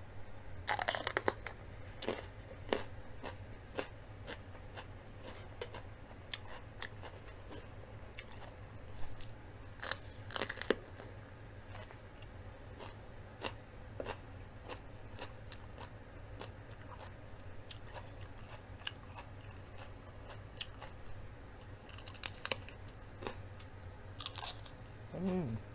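Close-miked crunching and chewing of a crisp raw vegetable, with loud crunchy bites about a second in and about ten seconds in, then many small chewing clicks.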